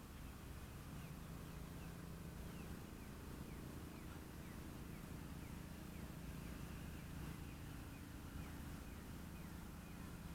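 Faint outdoor ambience: a small animal gives short falling chirps, about two a second, over a low steady hum.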